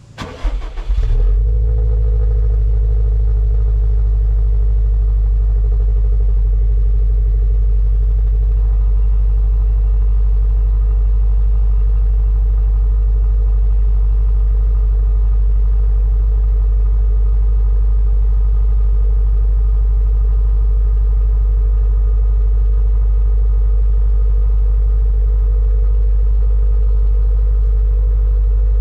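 Exhaust of a 2021 Subaru WRX STI's turbocharged 2.5-litre flat-four (EJ257) boxer engine on its stock quad-tip exhaust. The engine is started, flares briefly in the first second or so, then settles into a steady idle with a low, even rumble.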